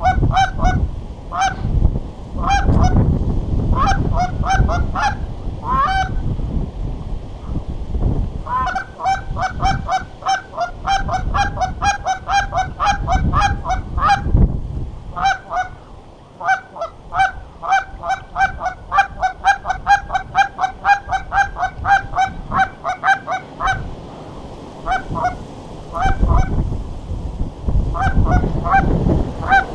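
Canada geese honking in rapid runs of short, two-note calls, several a second, with pauses between runs. Wind rumbles on the microphone underneath.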